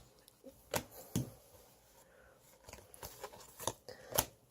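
Hands handling trading cards and foil booster-pack wrappers: a scattering of short, sharp clicks and crinkles, about half a dozen.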